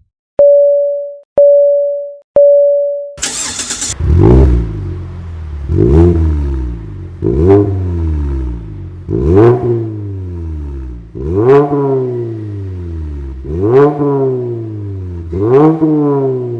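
Three short electronic beeps, then a brief burst of noise. Then a Mazda 3's Skyactiv-G 2.0 four-cylinder engine, breathing through a full aftermarket stainless exhaust system, is free-revved seven times: each rev climbs quickly and falls back to idle.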